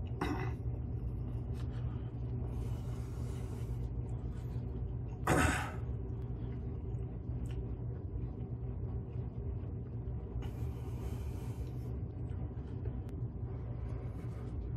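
A man breathing hard against the burn of extremely hot chili jerky: two long exhales, about two and ten seconds in, and a short voiced grunt about five seconds in. A steady low hum runs underneath.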